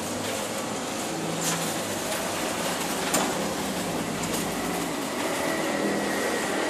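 City street traffic: a passing car's engine hum and tyre noise over a steady traffic din, with a few brief clicks.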